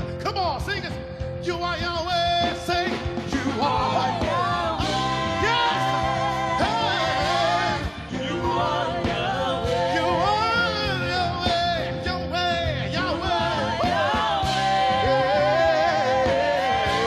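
Live gospel worship music: a band plays while a voice sings a wordless, melismatic line with vibrato over it.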